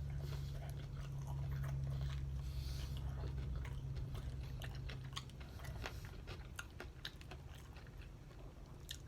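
Close-up chewing and biting of spicy chicken wings: a run of small wet clicks and light crunches of the meat and skin in the mouth, over a faint low hum that fades about halfway through.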